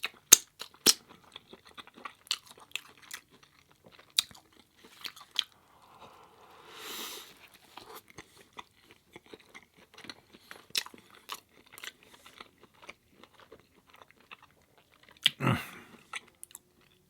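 A person chewing mouthfuls of food close to the microphone, with frequent short wet clicks and smacks of the mouth. There is a soft breathy swell partway through and one louder mouth sound near the end.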